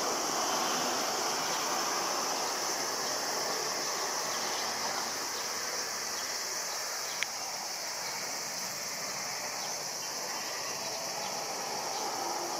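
Steady high-pitched insect drone, with the faint distant rush of a climbing Embraer regional jet's turbofan engines underneath, easing slightly; a single sharp click about seven seconds in.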